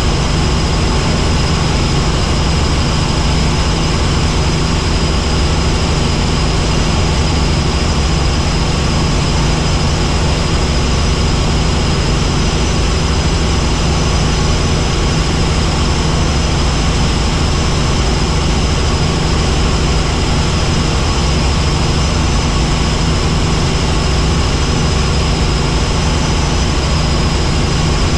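Helicopter in flight: a steady deep drone of rotor and engine, with a thin high whine above it.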